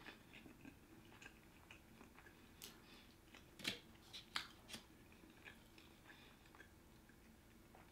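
Faint chewing of a sushi roll, with a few soft wet mouth clicks and smacks about three to five seconds in.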